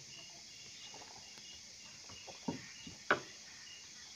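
Large green leaves, banana leaves by the look of them, rustling and crinkling as they are folded and pressed by hand. The handling sharpens into a few crackles past the middle and one louder crack about three seconds in. A cricket chirps steadily behind, about three chirps a second.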